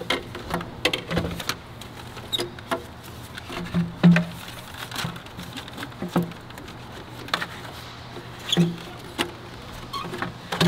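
Plastic intake manifold being worked into place in the engine bay, knocking and scraping against the wiring and engine parts in scattered, irregular clicks and clunks, the loudest about four seconds in.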